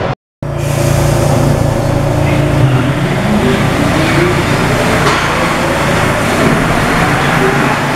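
RATP MP59 rubber-tyred Paris metro train pulling along the platform, its traction motors giving a whine that rises slowly in pitch as it gathers speed over a steady rumble. The sound cuts out briefly right at the start.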